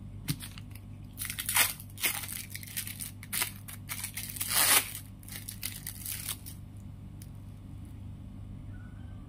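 Thin plastic cheese-slice packaging crinkling and rustling as it is handled, in irregular bursts that die away after about six seconds, over a steady low hum.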